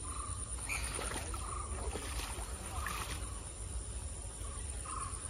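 Muddy water sloshing and splashing as people wade and scoop fish in a half-drained pond, with a few splashes in the first three seconds, over a steady high-pitched insect buzz.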